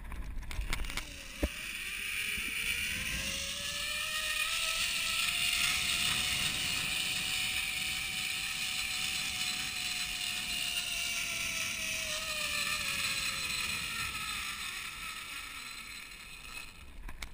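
Zip line trolley pulleys running along a steel cable: a whine that rises in pitch as the rider picks up speed, holds near the middle of the run, then falls away as the trolley slows, over a steady rushing hiss. A few sharp clicks and a knock come in the first second or so as the ride gets going.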